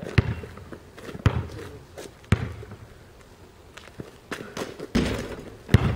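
Basketball dribbled on pavement, bouncing about once a second, with a few more knocks near the end.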